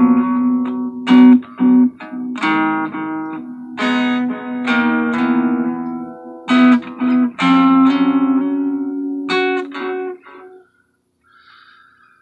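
Acoustic guitar being played: a series of plucked and strummed chords, each ringing on over a held low note. The playing stops about ten and a half seconds in.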